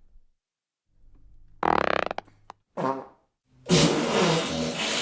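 Three fart sounds in a row: one about one and a half seconds in that breaks up into quick flutters, a short one just after, and a long, drawn-out one starting near the end.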